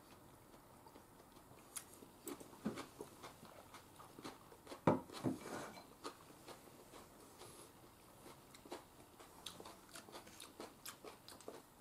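Quiet eating at a table: faint chewing and scattered light clicks of tableware, with a louder knock about five seconds in.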